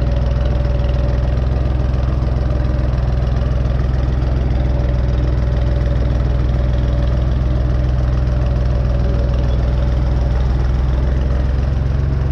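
Tractor engine running at a steady, even speed as the tractor is driven slowly, with a steady whine above the engine note.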